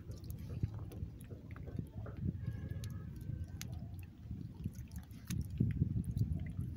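Scattered small clicks and wet crackles over a low rumble: shells and stones being handled while gathering shellfish on the shore. The rumble grows louder about five seconds in.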